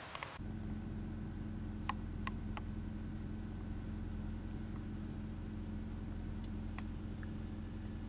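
Jaguar XKR's supercharged 4.2-litre V8 idling, heard from inside the cabin as a steady low hum that starts abruptly, with a few faint clicks.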